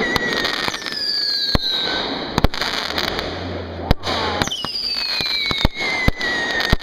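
Consumer fireworks going off in a rapid volley: sharp bangs every second or so, with shrill whistling shots whose pitch slowly falls.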